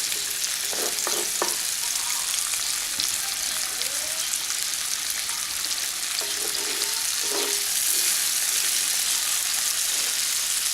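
Chicken eggs frying in a pan: a steady sizzle, with a few faint clicks about a second in.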